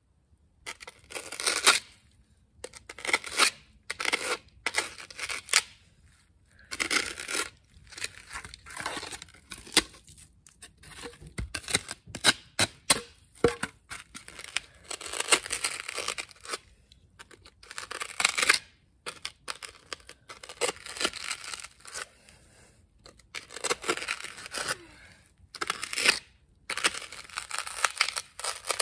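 Foam board being scraped by hand in a long series of rasping strokes, each up to about a second long, with short pauses between them, as its edges are shaped and cleaned up.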